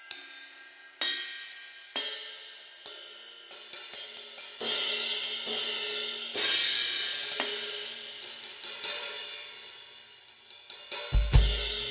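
Istanbul Mehmet Samatya cymbals played solo: single strikes about once a second, each left to ring and fade, then quicker strikes building into a sustained shimmering wash. Near the end bass drum hits come in as the rest of the kit joins.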